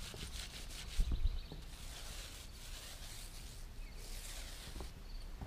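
A half-inch-nap paint roller loaded with latex deck stain rolling along a wooden railing top: a hissing rasp that comes and goes, with a soft knock about a second in.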